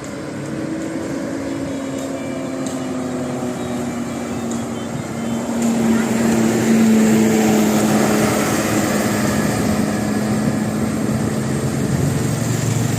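Tour bus engine running as the bus drives by: a steady low drone that slowly falls in pitch and grows louder about six seconds in.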